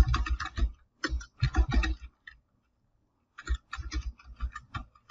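Typing on a computer keyboard: a quick run of keystrokes, a pause of about a second, then another run of keystrokes.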